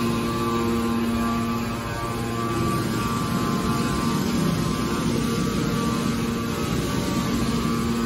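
Hydraulic metal baler's pump unit running: a steady machine hum with a held whining tone that fades somewhat through the middle and returns near the end.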